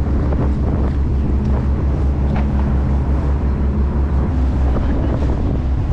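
Charter fishing boat's engine running with a steady low drone, with wind noise on the microphone.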